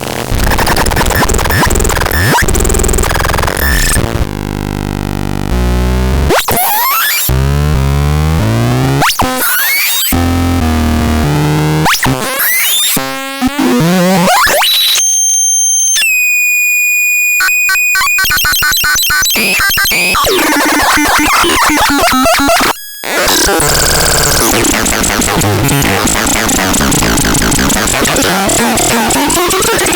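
Harsh electronic synthesizer sounds from the AZGAD M36: shifting noisy textures, stepped low tones and pitch sweeps. About halfway through, a clear held tone steps down in pitch. Shortly after, everything cuts out briefly before the noise returns.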